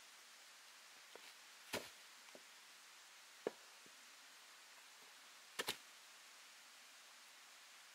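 Sawn log rounds being set down on a pile: a few sharp wooden knocks, the loudest about two seconds in and a quick double knock near six seconds, over a faint steady hiss.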